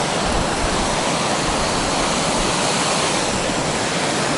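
Steady rush of fast, turbulent water pouring through a reservoir overflow, an unbroken roar of whitewater.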